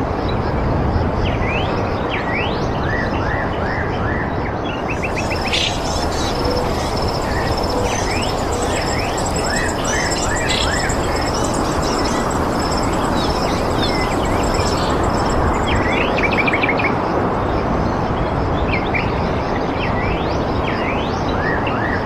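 Small birds chirping, with many quick rising calls, over a steady rushing background noise. A thin high trill joins in from about five seconds in until about fifteen seconds in.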